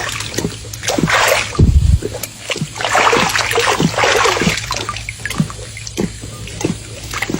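Leopard swimming: water splashing in bursts, with a heavy low splash or thump about a second and a half in and a busier spell of splashing a few seconds in.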